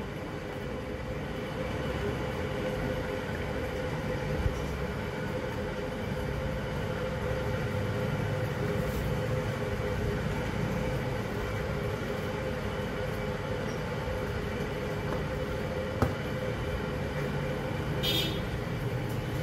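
Steady mechanical hum with a droning tone over a low rumble, broken by a couple of faint clicks.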